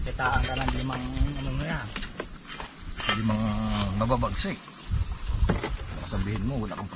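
A loud, steady, high-pitched insect chorus that pulses rapidly throughout. A man's voice is heard twice in the middle, each a drawn-out sound of a second or more.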